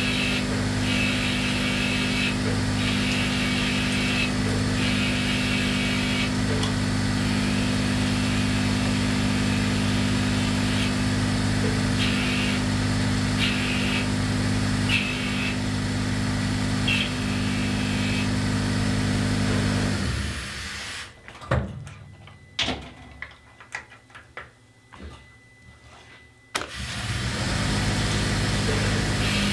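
Omniturn gang-tool CNC lathe running a cut, with a steady spindle hum and flood coolant splashing over the spinning part. About twenty seconds in the machine winds down to near quiet for around six seconds, with a few clicks and knocks, then spins back up to full speed.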